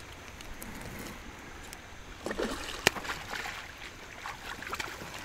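Water sloshing and splashing around a kayak as a hooked fish is played alongside. There is a splash a little over two seconds in and a single sharp knock just after it.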